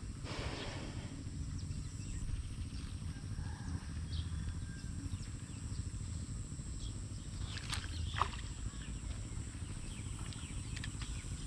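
Wind rumbling on the microphone outdoors, with a brief rushing swish just after the start and a couple of sharp clicks near eight seconds.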